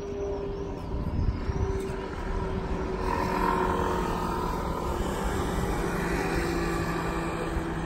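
Street traffic: motor scooters and cars running past, a steady engine drone that grows louder about three seconds in.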